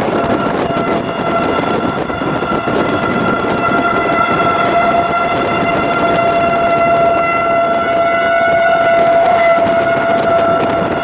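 Outdoor storm warning siren sounding one long steady tone, under gusty wind rushing over the microphone.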